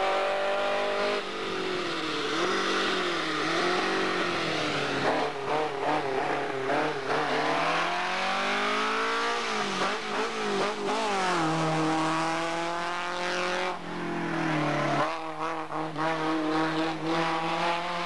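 Racing car's engine pulling hard through the slalom, its pitch repeatedly climbing and then dropping back sharply.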